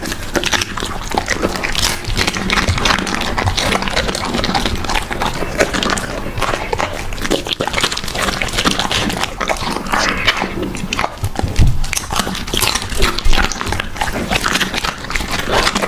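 A dog eating close to the microphone: quick, continuous chewing and biting, with many small crunches and wet smacks.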